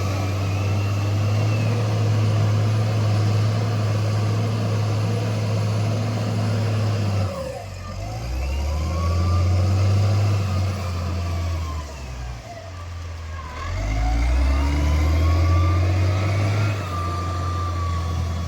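Heavy diesel engines running loud, with whining tones rising and falling over a deep hum; the noise eases twice, about seven and thirteen seconds in, and builds again each time.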